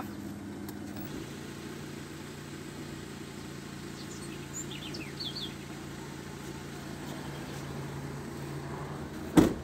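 Car engine idling with a steady low hum, a few birds chirping briefly around the middle, and a single loud thump near the end.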